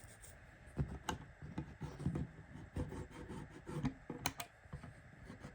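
Irregular light clicks and knocks, a few every second, some with a dull thud, from handling on the model railway layout.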